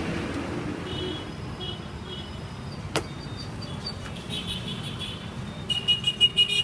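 Steady street traffic noise with short high tones scattered through it. A single sharp click comes about halfway, and a quick run of sharp clicks with a high ringing tone comes near the end.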